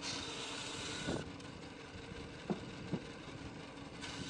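Homemade 14-inch wooden bandsaw running and sawing through a tree branch, a steady motor hum under the noise of the blade in the wood. Two sharp knocks come about two and a half and three seconds in. Wind is on the microphone.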